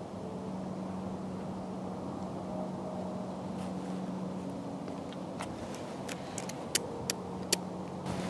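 Steady low rumble of distant road traffic with a faint hum. In the last few seconds come a handful of sharp clicks and crackles.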